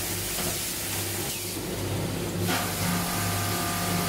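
Automatic coil nail welding machine running with a steady electrical hum and mechanical noise, and a burst of hissing lasting about a second, about a second and a half in.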